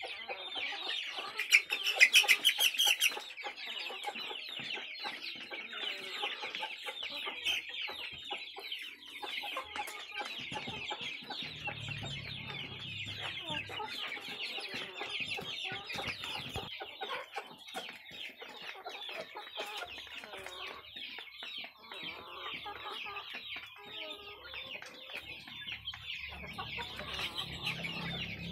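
A flock of domestic chickens clucking and calling continuously. A louder burst of calls, lasting about a second and a half, starts about one and a half seconds in.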